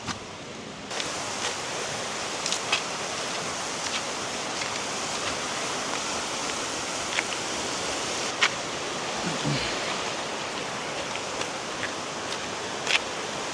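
Steady rush of fast-flowing river water, an even hiss that swells about a second in, with a few faint clicks over it.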